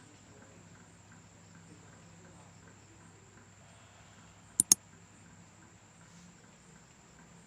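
Faint steady chirring of insects, with a sharp double click about two-thirds of the way through that is much louder than the rest.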